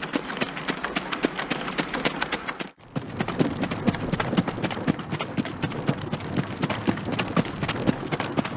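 Horse hooves clip-clopping in a dense, quick run of hoofbeats. The sound breaks off for a moment nearly three seconds in, then resumes with heavier, lower hoof thuds.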